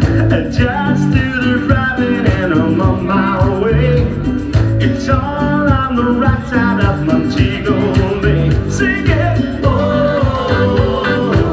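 A singer performing a song over guitar, bass and a steady beat.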